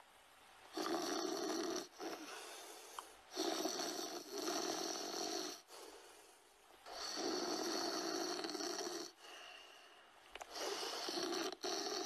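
Snoring: a run of long, loud snores about every three seconds, with quieter breaths between them.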